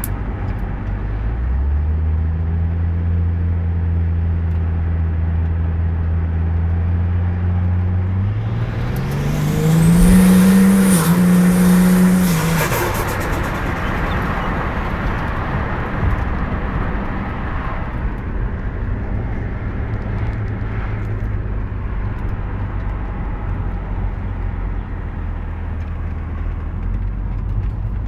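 Ford Falcon XR6 Turbo's turbocharged 4.0-litre inline-six held at steady revs, then revved up about eight seconds in, held high for a few seconds and released. Turbo hiss rises with the revs, and the turbo flutters as the throttle closes, on 15 psi of boost. Afterwards the engine settles back to a steady idle.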